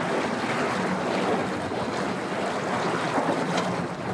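A boat engine idling steadily: a low, even hum under a constant wash of noise.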